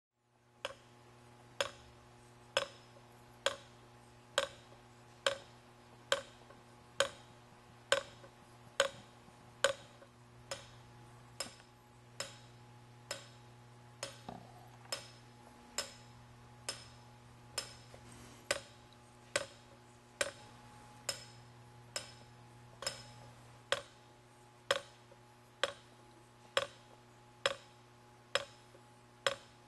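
Clockwork-like mechanism of a kinetic sculpture ticking, one sharp click about every second at a very even pace, over a steady low hum.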